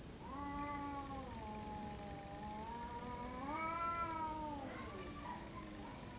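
A cat yowling at a rival in a standoff before a fight: one long drawn-out threat wail that sinks in pitch, rises again about three and a half seconds in, then falls away, followed by a few shorter, fainter calls near the end.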